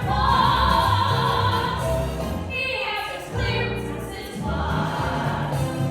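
Singers performing a Christmas song over backing music, with a long held note in the first two seconds and a brief break a little after three seconds before the singing resumes.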